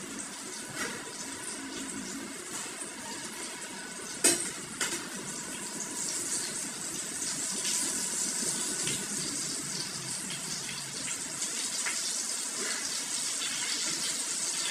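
Food sizzling as it fries in a pan over a gas flame, a steady hiss that grows a little louder toward the end, with a spatula scraping and knocking in the pan; the sharpest knock comes about four seconds in.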